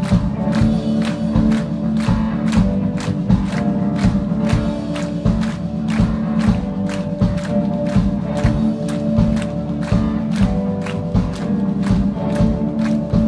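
Italian indie rock band playing live: electric guitars and a drum kit keeping a steady beat of about three hits a second, heard from the audience.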